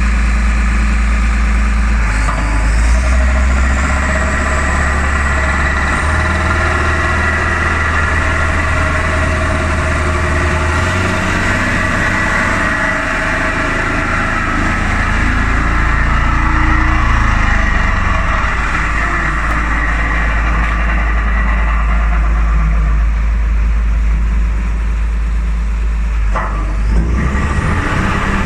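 Heavy diesel engine of a 22-ton single-drum vibratory road roller running steadily. Its deep note shifts up and down several times.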